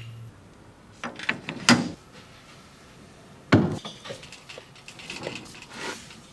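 Metal clinks and knocks of a quick-change tool holder being set on a metal lathe's tool post and clamped down: a few light clicks about a second in, one sharper knock a little past halfway, then softer clicks.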